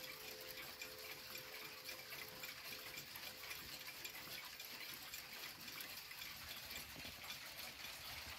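Mauthe mantel clock movement ticking faintly and steadily as its pendulum swings.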